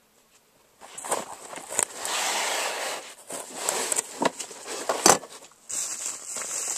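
Plastic and cardboard packaging rustling and crinkling as a cordless drill is pulled from its box, with scattered clicks and a few sharp knocks. It starts about a second in, and the loudest knock comes about five seconds in.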